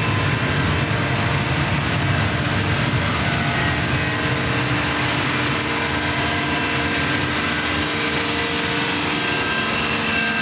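Steady, loud drone of running machinery in a yacht's engine room: a low rumble with several steady hum tones above it.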